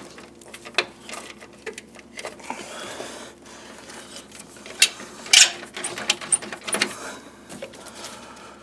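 Hand socket ratchet clicking and metal tools clinking while the cooling fan assembly's 10 mm bolts are loosened, with a louder clatter about five seconds in.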